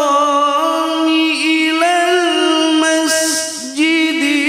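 A man reciting the Quran in the melodic tilawah style through a microphone and PA loudspeakers. He holds long notes and ornaments them with wavering runs, with a short breathy break about three seconds in.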